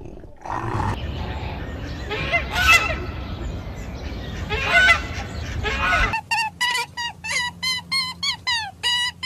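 Domestic fowl calling: over a noisy yard background, two loud calls come about two seconds apart. Then, after a sudden change about six seconds in, short pitched honking calls repeat about three times a second, some dropping in pitch.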